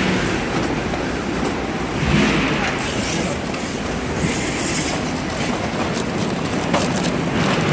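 Shrink-wrapping machine and heat-shrink tunnel of an egg-packing line running: a steady mechanical rumble and rattle, with short hisses about two and four seconds in.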